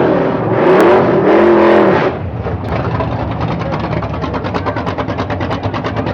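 Car engine revving, its pitch rising and falling a few times, then settling about two seconds in to a steady idle with a rapid, even pulse.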